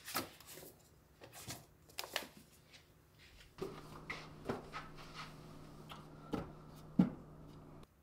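Books and magazines being handled and set down on wooden shelves: paper rustling and a series of light knocks, the sharpest about seven seconds in. A steady low hum runs under the second half.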